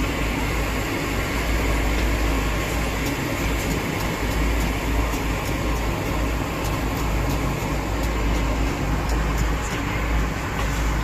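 Steady background rumble and hiss with faint light clicks here and there.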